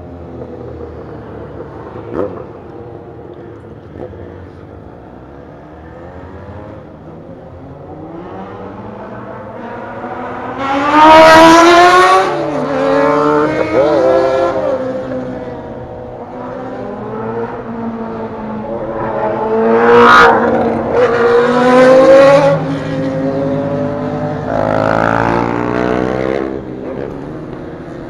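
Motorcycle engines running and repeatedly revving hard as they accelerate, the pitch climbing in several loud surges: the biggest come about eleven seconds in and again twice around twenty seconds, over a steady engine drone between them.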